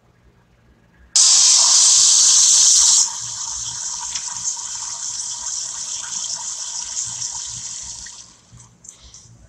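Rushing water that starts suddenly about a second in, very loud for about two seconds, then quieter and steady before fading out near the end.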